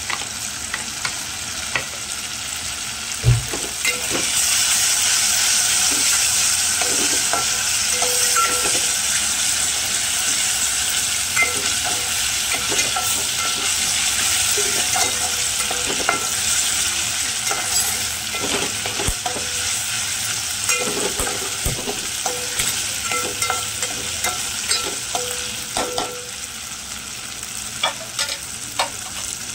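Ginger-garlic paste sizzling in hot oil in a metal pot, stirred with a steel spatula that scrapes and clicks against the pot, with one sharper knock about three seconds in. The sizzle gets louder about four seconds in as the paste fries toward red-brown.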